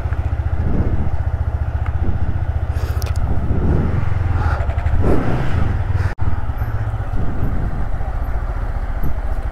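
A Yamaha MT-15 V2's single-cylinder 155 cc engine running steadily at low revs as the motorcycle rolls away at walking pace. The sound drops out for an instant about six seconds in.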